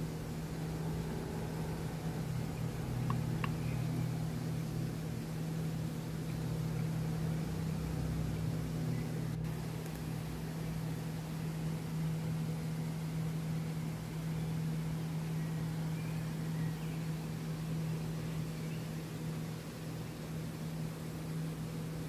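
Steady rushing of a waterfall and stream, with a constant low rumble under it and a few faint bird chirps now and then.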